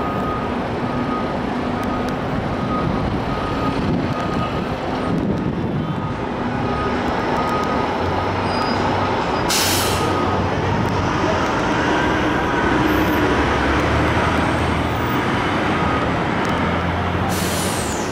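A fire engine backing up: its reversing alarm beeps in a steady row until about ten seconds in, over the rumble of its engine. Its air brakes let out a sharp hiss about nine and a half seconds in and again near the end, with passing traffic throughout.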